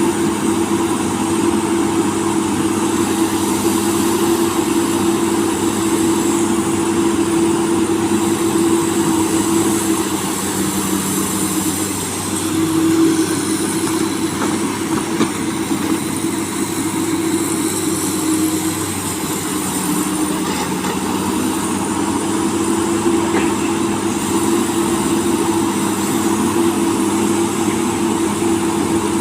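Komatsu excavator's diesel engine running steadily while digging. Its hum shifts briefly about ten seconds in and again near twenty seconds.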